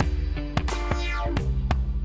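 Background music with a steady drum-machine beat, bass and guitar.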